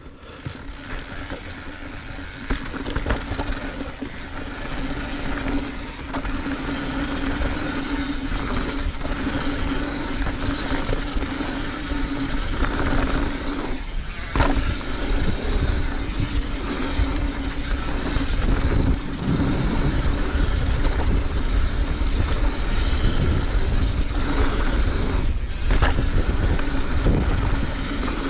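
Santa Cruz V10 downhill mountain bike descending a hardpacked dirt trail: tyres rolling with a steady rumble and occasional knocks over bumps, growing louder over the first few seconds as speed builds. A steady hum runs under it and breaks off briefly twice.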